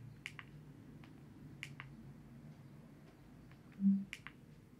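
Faint, scattered sharp clicks over a low steady hum, with a brief low tone about four seconds in.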